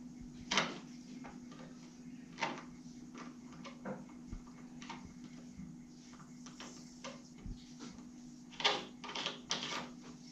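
Scattered light clicks and scrapes of small metal tap parts being handled and screwed by hand into a wall tap fitting, with a faint steady hum underneath.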